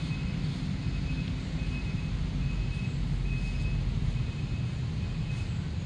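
A steady low outdoor rumble, with a faint short high chirp repeating about once a second.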